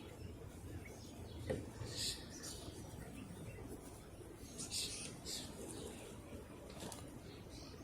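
Birds chirping outdoors: short, high chirps about two seconds in and again around five seconds in, over a low steady background rumble. A single sharp click about a second and a half in.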